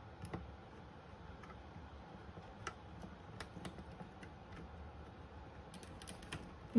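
Faint, scattered plastic clicks and ticks of AT power-supply connectors being worked and seated onto a motherboard's power header.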